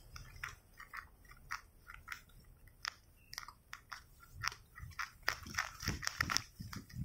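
Footsteps of a person walking, heard as faint irregular clicks and crunches, coming closer together and louder in the last two seconds.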